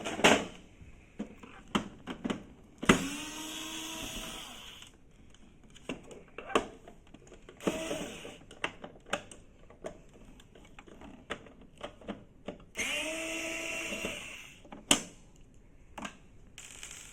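Small electric screwdriver backing out the scanner module screws. It runs twice for about two seconds each, its whine rising as it spins up and then holding steady, with a shorter burst in between. Sharp clicks and taps of the screws and the bit are heard between the runs.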